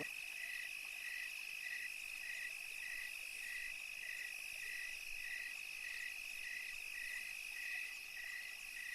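Night chorus of crickets and frogs: a steady high trill, with a shorter call repeating about twice a second beneath it.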